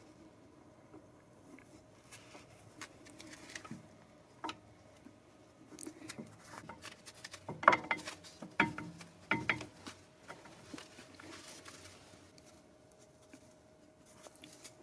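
A new brake pad being fitted by hand into a Mercedes-Benz AMG front brake caliper: small clicks, taps and scrapes of the pad's metal backing against the caliper, with a cluster of louder clacks about eight to ten seconds in.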